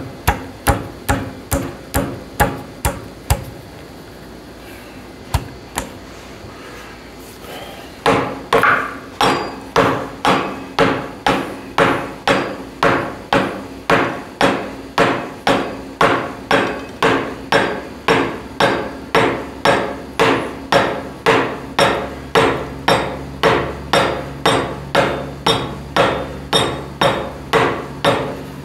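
Hammer blows, about two a second, seating a part on the crankshaft nose in the new front cover of a John Deere 400 engine, where the freshly lubed front main oil seal sits. A short run of strikes, a pause of a few seconds, then a long steady run.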